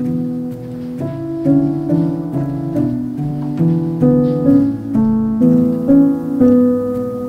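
Instrumental background music: a gentle melody of short notes changing about twice a second over held lower notes.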